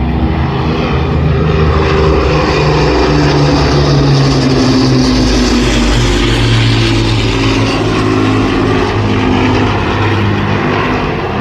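WWII piston-engined propeller warbird flying past, engine note loud and steady, swelling toward the middle as it comes overhead.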